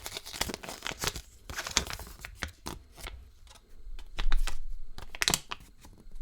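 Wrapping being handled and torn: dense crinkling and crackling, louder around four seconds in, with a sharp snap about five seconds in.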